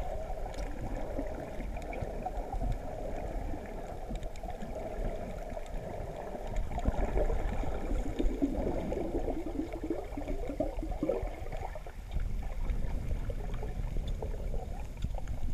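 Underwater water noise picked up by a submerged camera: a steady low rumble with gurgling, bubbly crackle, busier for a few seconds midway.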